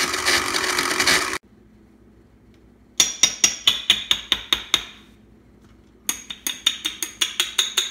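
Glass-jar electric blender running as it grinds dried habanero peppers to powder, cutting off sharply about a second and a half in. Then two runs of quick, sharp taps with a glassy ring, about six a second, from a plastic measuring spoon knocking on the blender jar.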